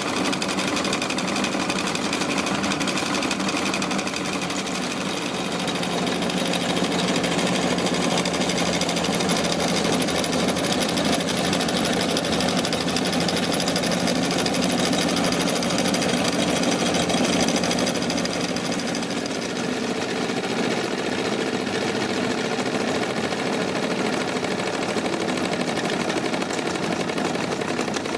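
Wilesco D-20 miniature steam engine running steadily, driving belt-driven toy workshop machines through line shafting: a continuous fast mechanical clatter.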